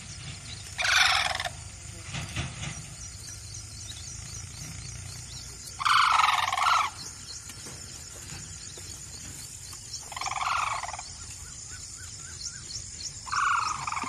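Sarus cranes calling: four loud calls of about a second each, about a second in, around six seconds, around ten seconds and near the end.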